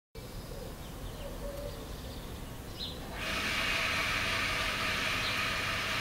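Steady outdoor background rumble that turns into a louder, even hiss about three seconds in, with a few faint, high small-bird chirps before it.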